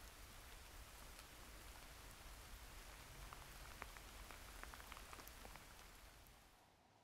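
Faint outdoor ambience: a steady, even hiss with a scattered run of soft ticks about halfway through. It fades out near the end.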